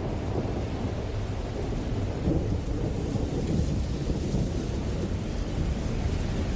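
Steady rain with a deep rumble of thunder rolling beneath it.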